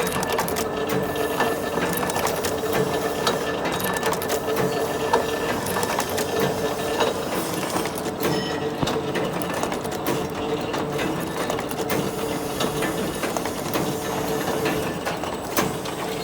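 Chain bending and welding machine running: a continuous fast mechanical clatter of clicks over a steady hum.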